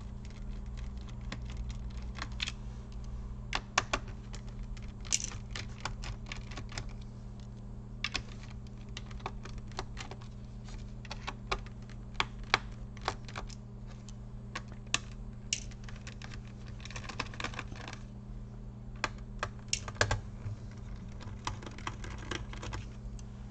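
Small screwdriver backing tiny screws out of a laptop's plastic bottom case: scattered light, irregular clicks and ticks of the bit, screws and plastic, over a steady low hum.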